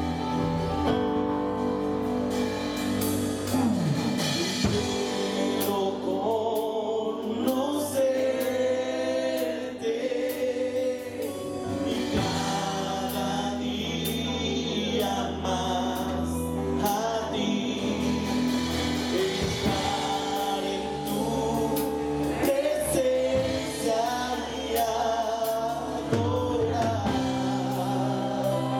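Live Christian worship band: a female and a male vocalist singing a Spanish-language worship song over keyboard and electric guitar.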